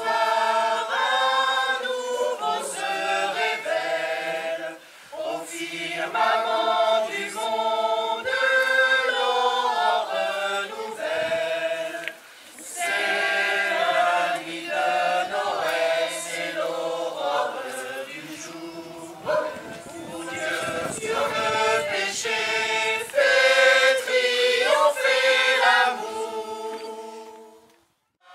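Choir singing, with sustained notes in phrases broken by short pauses, and the singing fading out near the end.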